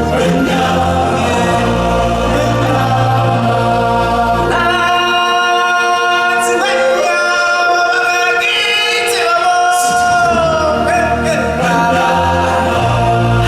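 A choir singing over music in long held notes. The low bass drops out for a few seconds in the middle, and a held note slides downward about ten seconds in.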